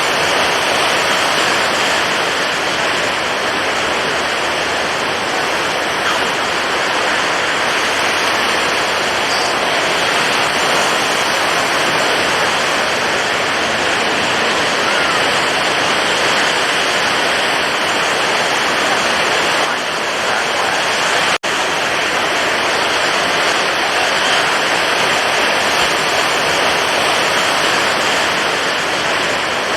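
Stormy ocean waves: a loud, steady rush of water with no separate breaks standing out. It cuts out for an instant about 21 seconds in.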